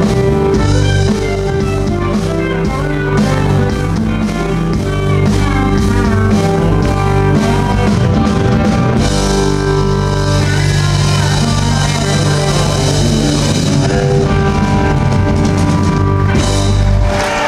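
Live rock band playing a slow blues-rock song without vocals: electric guitar lines with bent notes over bass, drum kit and cymbal wash. The band stops together on a final hit just before the end.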